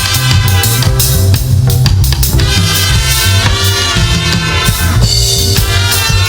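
Live band music with drum kit, bass and brass-like instruments playing an upbeat groove.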